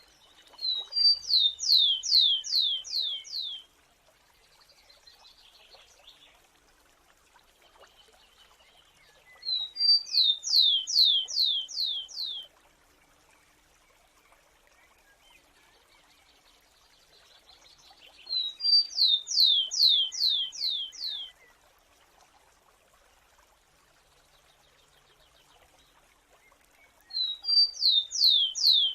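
A sparrow singing the same short song four times, about every eight to nine seconds. Each song is a couple of short opening notes followed by a quick series of about six high notes that each slide downward.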